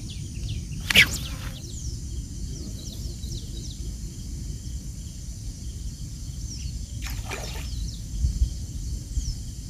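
Small birds chirping in many short, high, falling notes over a steady low rumble. There is a sharp crackling rustle about a second in, and a softer rustle about seven seconds in.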